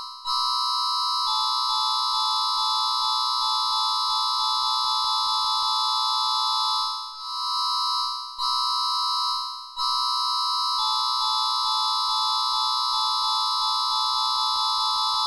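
Electronic emergency alert tone: a steady, buzzy chord of several pitches around 1 kHz, briefly breaking off and restarting about seven, eight and a half and ten seconds in.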